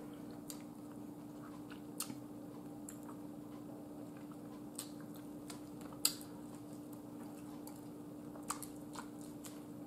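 Quiet mouth sounds of someone chewing chicken-wing meat: a few scattered lip smacks and clicks, the sharpest about six seconds in, over a steady low hum.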